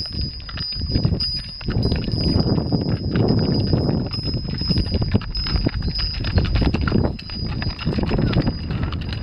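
Hooves of pack mules and horses clopping and crunching on a rocky gravel path in an uneven stream of steps, the animals passing close by.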